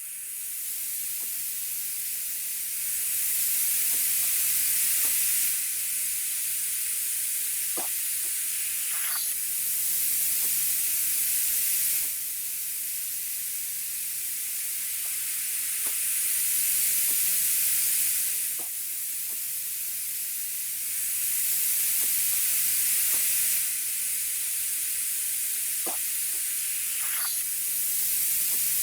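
Iguana hissing: a breathy, high-pitched hiss that swells for a few seconds and eases back, over and over, with a few faint clicks.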